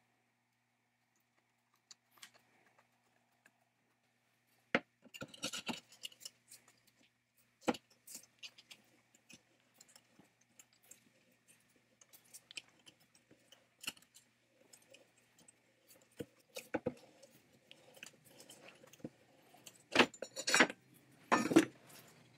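An aluminium electric-motor housing being handled and worked apart on a wooden block. Scattered metallic clicks and knocks, with louder knocks about five and eight seconds in and a quick run of loud knocks near the end.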